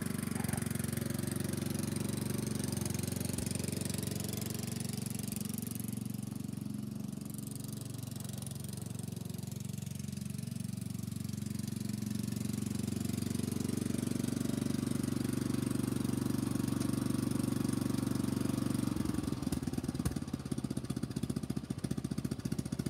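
Craftsman riding mower's small engine running as the mower is driven away and back, its note fading somewhat through the middle and growing louder again. Near the end the running turns rough and choppy as it pulls up. It is running on a replacement carburetor after a bad carburetor and cracked intake.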